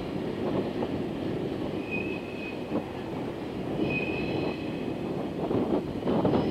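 JR Freight Koki container wagons rolling away over pointwork: a steady rumble with irregular clacks from wheels over rail joints, and brief high wheel squeals about two and four seconds in.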